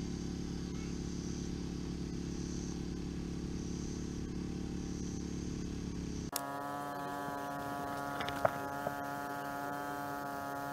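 Steady electrical hum with a low buzz. About six seconds in it switches abruptly to a higher-pitched buzz, with one sharp click a couple of seconds later.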